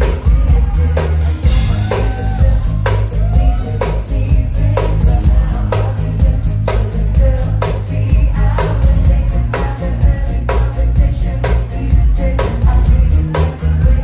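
Live pop band playing: a woman's lead vocal over drum kit, bass, electric guitars and keyboards. The bass is heavy and steady, with a sharp drum hit about once a second.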